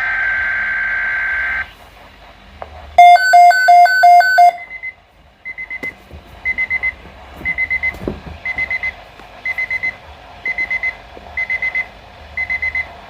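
Weather radio receiver going off for a severe thunderstorm watch. It opens with a short burst of warbling alert data tone, then five loud beeps, then a high alarm that beeps in quick clusters about once a second.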